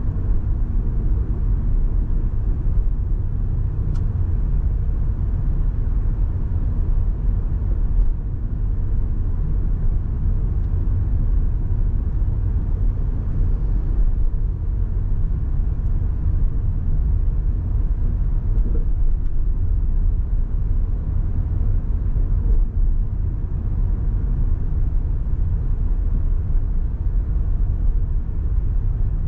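Car driving: a steady low rumble of road and tyre noise.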